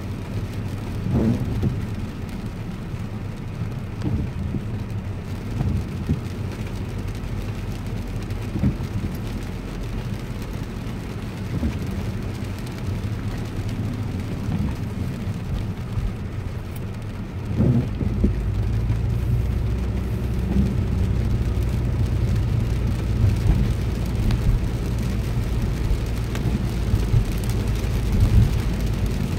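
Car heard from inside the cabin while driving on a rain-soaked road: a steady low rumble of engine and tyres on wet pavement, with a few soft thumps. About two thirds of the way through the rumble grows louder and fuller, as the car picks up speed.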